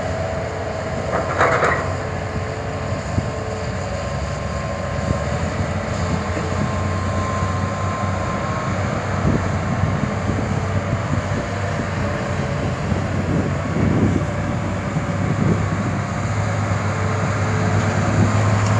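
Diesel engine of a Hitachi Zaxis 200 excavator running steadily under load as it digs and loads soil, with a brief clatter about a second and a half in. The engine drone grows louder near the end.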